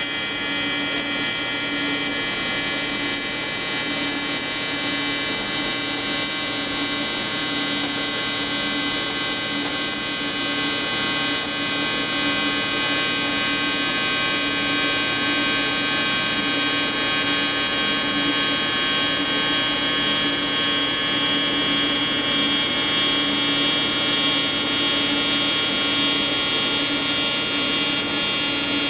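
AC TIG welding arc buzzing steadily from an Everlast 325EXT inverter welder on advanced square wave, welding aluminium.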